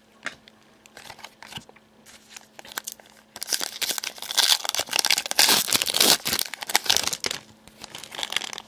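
Foil wrapper of a trading-card pack crinkling and tearing as it is opened by hand: a few light clicks, then dense crackling that starts about three seconds in, lasts about four seconds and fades back to scattered clicks near the end.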